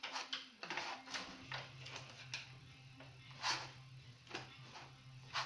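Palette knife scraping and tapping acrylic paint onto a stretched canvas: a run of short, irregular scrapes, two louder strokes near the middle and at the end.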